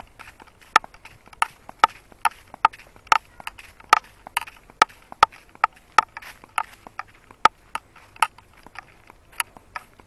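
Footsteps walking along a path: sharp, regular steps, about two to three a second.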